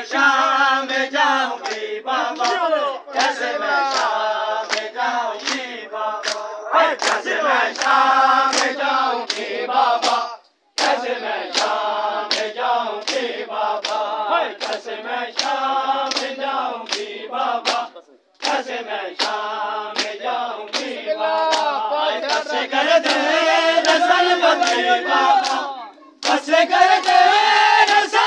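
Shia matam: a crowd of men chanting a noha in chorus while striking their bare chests with open hands in a steady, even beat. The sound drops out briefly three times.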